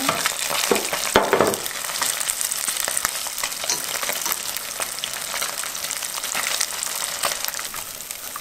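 Batter-coated pond smelt sizzling and crackling in hot oil during their second fry at a raised temperature, stirred with wooden chopsticks.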